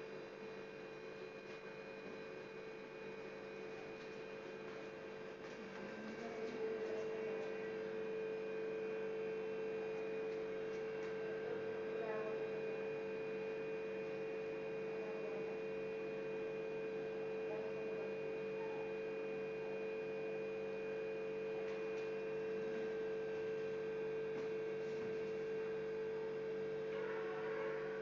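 Steady electrical hum, a constant droning tone with fainter steady tones around it, growing louder about six seconds in and then holding level.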